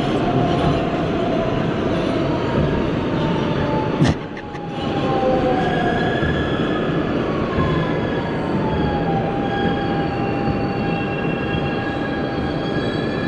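R160B subway train running through a tunnel: a steady rumble and rattle of wheels on rail, with thin high squealing tones that glide slowly down in pitch and then hold. A single sharp click about four seconds in, after which the noise dips briefly.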